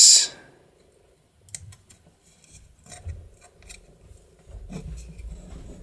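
Faint, scattered clicks and scrapes of small steel parts inside an opened mortise deadlatch lock as they are moved and fitted by hand, with some low bumps of the lock case near the end.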